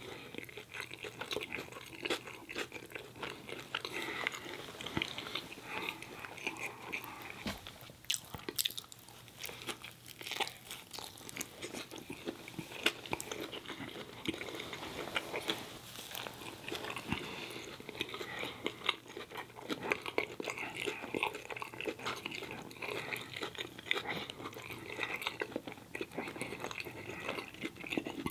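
A man chewing mouthfuls of a bacon cheese hot dog close to the microphone: a steady stream of wet smacks and small mouth clicks, with another bite taken partway through.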